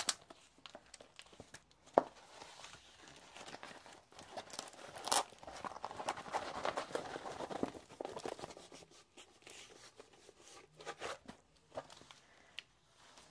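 Rustling and crinkling as a rolled diamond-painting canvas with its plastic cover film is handled, unrolled and pressed flat on a table, with scattered taps and one sharp click about two seconds in.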